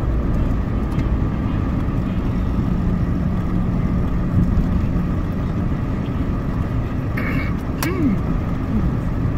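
Car driving at a steady cruising speed, heard from inside the cabin: a steady rumble of engine and tyres on the road.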